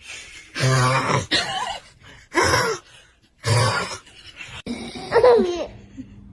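A man snoring loudly in three harsh bursts, each about half a second long and a second or so apart. About five seconds in comes a short vocal sound whose pitch wavers and falls.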